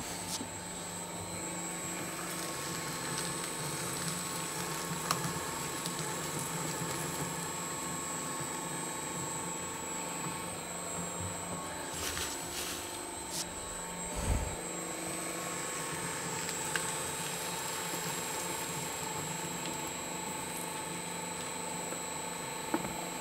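Electric paper shredder running steadily, its motor humming as shredded paper is fed through cutters gummed with sticky toy goo. There are a few clicks about twelve seconds in and a short dull thump soon after.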